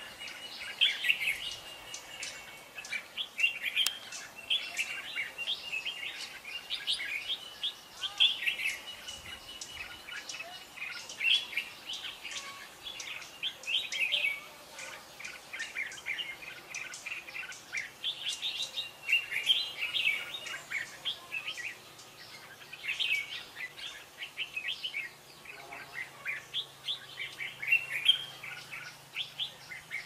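Red-whiskered bulbuls singing in a song duel, short bright chirping phrases repeated every second or two.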